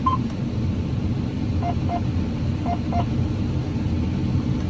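Combine harvester running steadily while harvesting corn: a low, even machine drone. About two and three seconds in, two pairs of short electronic beeps sound over it.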